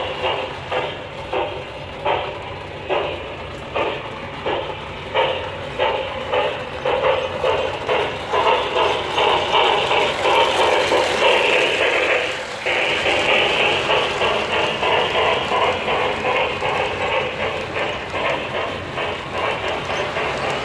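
O gauge model trains running on three-rail track: a regular clacking of wheels and running gear, about once a second, growing louder as a model steam locomotive passes close by halfway through, then steadier running noise as freight cars roll past.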